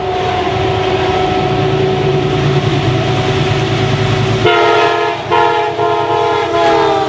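Metro-North GE Genesis P32AC-DM diesel locomotive running through a station with its horn blowing: a steady note on the approach, then a fuller multi-note horn chord with short breaks from about four and a half seconds in, dropping in pitch near the end as the locomotive passes. The rumble of the locomotive and the cars' wheels on the rails runs underneath.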